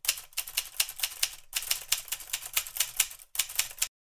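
Typewriter key strikes used as a sound effect: a run of quick, uneven clicks at about five a second, with a few brief breaks, stopping suddenly shortly before the end.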